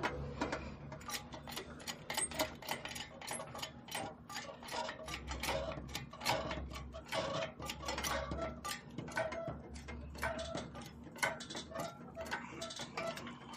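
Irregular light clicking and ticking, several clicks a second, with brief faint squeaky notes now and then.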